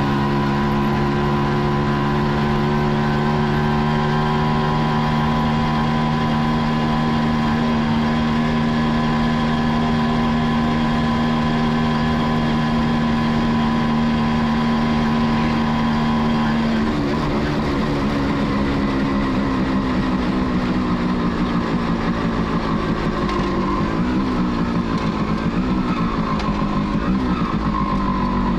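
Kawasaki B1's two-stroke single-cylinder engine running under way at a steady speed. About two-thirds of the way through, its pitch drops and then wavers up and down as the engine speed falls.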